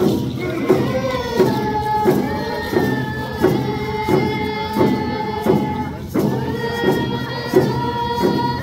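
A group of young voices singing a Lummi paddle song in unison, with held notes that step in pitch, over a steady drumbeat of about three beats every two seconds.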